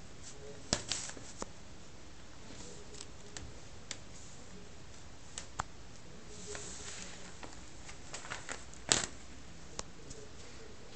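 A tabby kitten clawing and batting at a bathrobe belt over a fabric bath mat: scattered soft scratches, ticks and brief rustles of cloth, with the sharpest click about nine seconds in.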